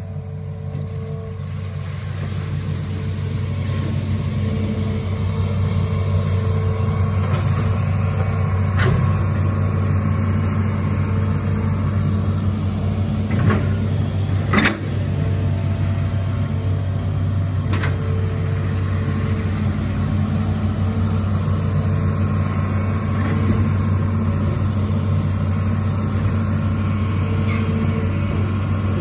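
Hitachi Zaxis 210 amphibious excavator's diesel engine running steadily while the machine digs, building up over the first few seconds. A few sharp knocks come around the middle, the loudest about halfway through.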